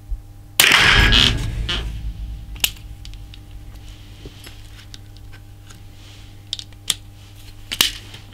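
A single shot from a Chiappa Little Badger single-shot break-action .22 LR rifle about half a second in, its report fading over about a second. It is followed by scattered metallic clicks, with a louder one near the end, as the action is opened and reloaded.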